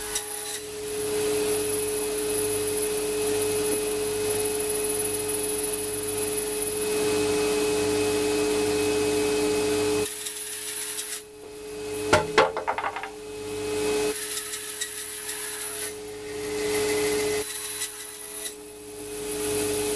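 A woodworking power tool running steadily and cutting into oak boards. The cutting noise stops briefly three times as each pass ends, then builds again as the next one starts, with a few sharp knocks between passes.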